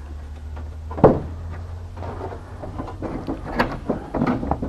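Fiberglass aircraft cowling knocking and rubbing as the lower half is pushed up into place against the upper half. There is one sharp thump about a second in, then a run of smaller knocks and scrapes, over a steady low hum.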